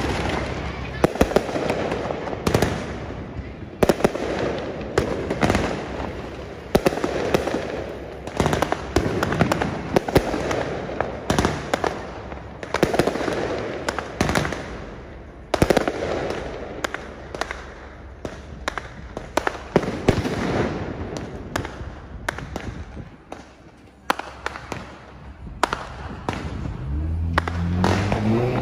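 Many amateur fireworks going off: repeated sharp bangs and crackling aerial bursts, one after another, over a continuous rumble of further explosions. Near the end a vehicle engine revs, rising in pitch.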